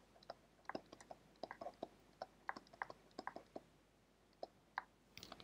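Faint, irregular light ticks and taps of a stylus writing on a tablet screen.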